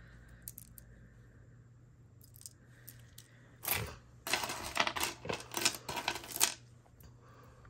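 Metal costume jewelry clinking and plastic bags crinkling as a hand rummages through a pile of jewelry. It is quiet for the first few seconds, then brief rattling and rustling follows for about two seconds past the middle.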